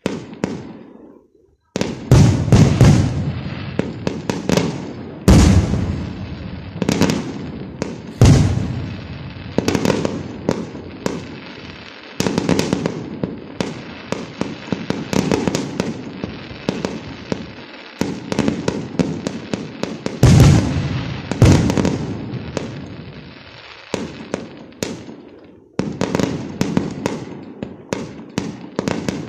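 Aerial fireworks going off in quick succession, a steady string of sharp bangs with several heavy booms whose rumble rolls away between shots.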